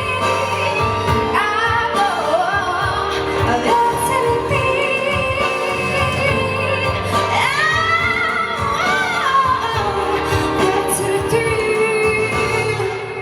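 Song with a female voice singing long held notes that slide up and down in pitch, over steady instrumental accompaniment.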